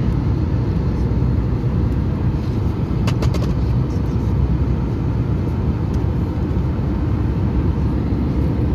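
Steady low rumble of an Airbus A320 heard from inside the passenger cabin, holding at an even level, with a few faint clicks about three seconds in.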